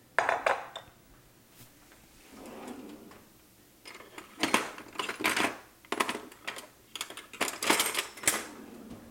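Metal kitchen utensils clattering and clinking as a kitchen drawer is rummaged through, after a sharp clatter at the start and a soft sliding noise of the drawer opening.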